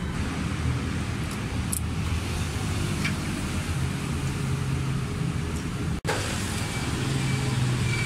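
Steady low rumble of running vehicle engines and road traffic. The sound drops out for an instant about six seconds in.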